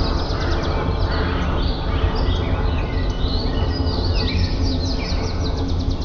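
Small songbirds chirping and trilling in quick, overlapping phrases, over a steady low rumble.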